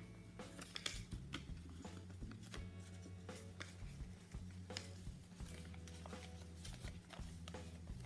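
Sheet of origami paper being folded and creased by hand, with crisp crinkles and sharp little clicks, over quiet background music with low held notes that change every second or so.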